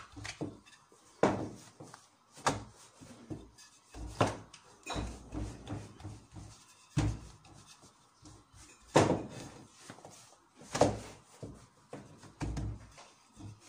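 Wooden rolling pin working dough on a floured metal worktop: irregular knocks and thuds every second or so as the pin strikes the surface and the dough sheet is lifted and turned, a few of the knocks much sharper than the rest.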